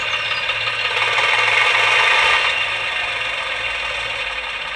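Recorded diesel shunter engine sound played through the small speaker of a DigiSound sound card in a Gauge 1 model Class 03 locomotive, part of its engine-start sequence. The sound is thin, with little bass. It runs up to its loudest about two seconds in, then eases back towards idle.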